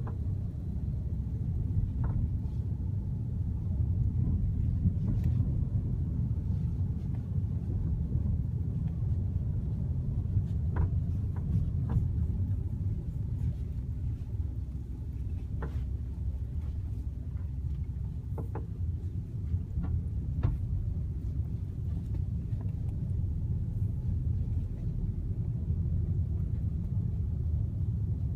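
Ford Fiesta on the move: a steady low rumble with a few faint short knocks or clicks scattered through it, the abnormal noise the car is being recorded for.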